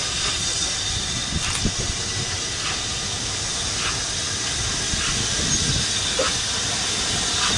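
Steam locomotive hissing steam steadily, with a low rumble underneath, as it runs in toward the platform hauling carriages.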